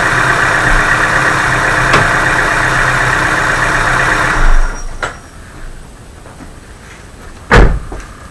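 Chevrolet Aveo 1.5 engine idling steadily, warm enough that its hydraulic lifters have stopped knocking. It is shut off about halfway through, and near the end there is a single heavy thump.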